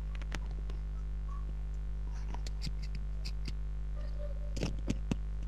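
Steady low electrical hum, like mains hum, with scattered faint clicks and a couple of brief soft sounds near the end; no speech.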